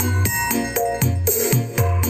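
Electronic DJ remix music with a deep bass beat pulsing about twice a second under a bright melody of high notes.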